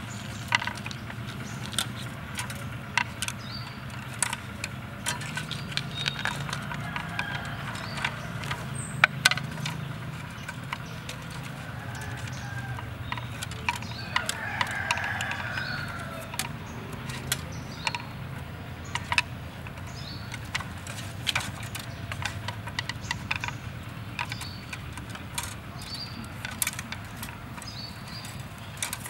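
Thin wire being wrapped and twisted around split bamboo slats: scattered small clicks and ticks of wire and dry bamboo being handled, over a steady low hum.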